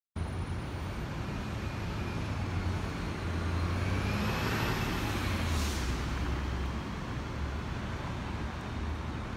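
City street traffic: a steady low rumble of passing cars and heavier vehicles, swelling as one goes by around the middle, with a short hiss about halfway through.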